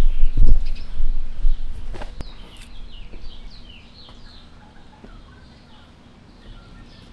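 Low thumps of camera handling in the first second or so as the camera is set down. Then birds chirping, a quick run of short falling notes that thins out and grows fainter toward the end.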